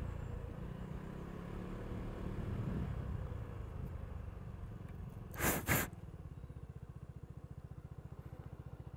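Lexmoto Aura 125cc scooter's single-cylinder four-stroke engine running as the scooter rides along and slows down, then idling with an even, rapid beat from about six seconds in. Two short bursts of noise come just before it settles to idle.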